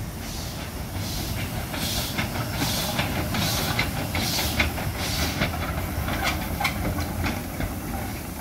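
Hunslet Austerity 0-6-0 saddle tank steam locomotive moving slowly, its exhaust chuffing in steady beats a little under a second apart, with sharp clicks and clanks from the wheels and motion. It grows louder towards the middle as it passes, then eases off.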